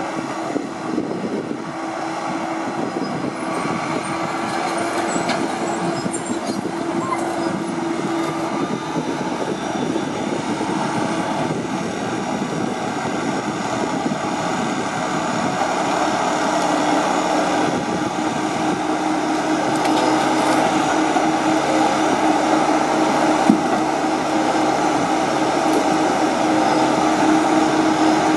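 Timberpro TF840B forwarder's diesel engine running under load as its hydraulic crane works, with a steady hum that grows slowly louder. A single sharp knock comes late on.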